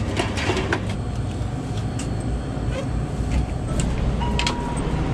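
Clinks and clicks of a can being taken from a shop's glass-door drink cooler, then the shop's front door pushed open with a brief beep, over a steady low rumble.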